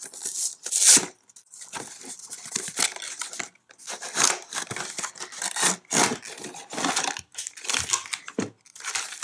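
Cardboard toy box being opened by hand and its packaging pulled out: a run of irregular rustling, scraping and crinkling sounds, loudest about a second in.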